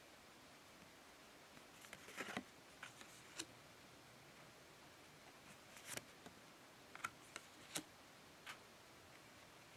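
Pokémon trading cards being handled: scattered soft clicks and brushing sounds as cards slide and tap against each other, with quiet pauses between them.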